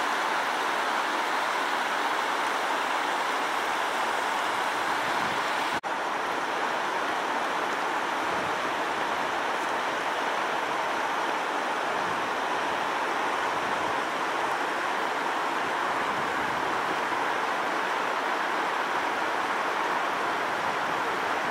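Flooded St. Francois River rushing over rock ledges and boulders in rapids: a steady rush of whitewater, briefly cutting out about six seconds in.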